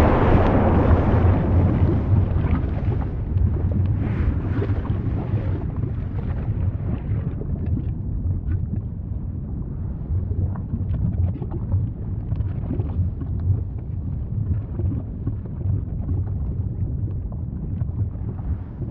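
Volcano rumbling: a deep, continuous roar with scattered small crackles, fuller at the start and thinning after the first few seconds.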